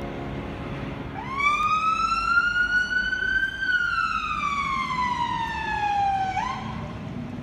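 Fire engine siren starting up in a slow wail: the tone sweeps up about a second in, climbs gently, then falls slowly and begins to rise again near the end.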